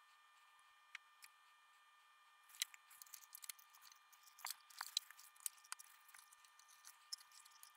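Faint clicks and light taps of hands handling the STK-0050 power module and working inside an open amplifier chassis. They are thickest from about two and a half to six seconds in; otherwise near silence.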